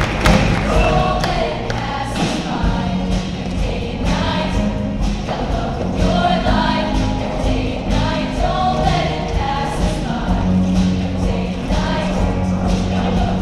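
Show choir of many women's voices singing together over a live band with a steady beat.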